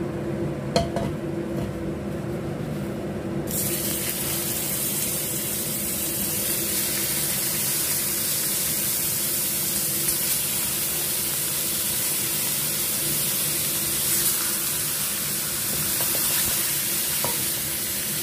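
Whole fish frying in hot oil in a frying pan: after a quieter start with a light knock about a second in, a steady sizzle sets in suddenly a few seconds in as the fish go into the oil, and it runs on evenly.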